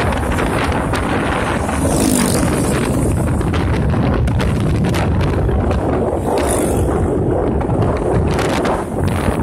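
Loud wind buffeting on the microphone of a moving motorcycle, gusting unevenly, over the motorcycle's running engine and road noise.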